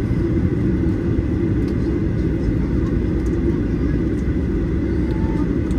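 Steady low rumble inside the cabin of a Boeing 737-800 with its CFM56-7B turbofan engines running, heard from a window seat. It holds an even level throughout, with no rise or fall.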